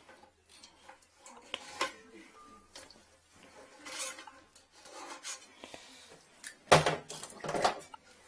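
Scattered clinks and scraping of a tool and corrugated hose against a porcelain toilet bowl. Near the end there is a louder clatter, followed by a second one shortly after.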